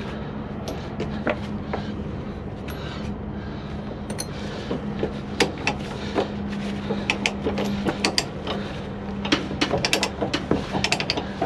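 Ratchet chain load binder being worked to release a chain tie-down on a trailer: scattered metallic clicks and clanks of the pawl and chain, turning into quicker ratcheting near the end. A steady low hum runs underneath.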